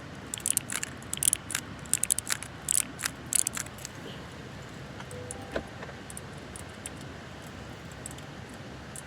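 Keyboard fidget toy's keys clicked rapidly in a quick flurry for about three and a half seconds, then only a few scattered, fainter clicks. A steady low rumble of a moving car runs underneath.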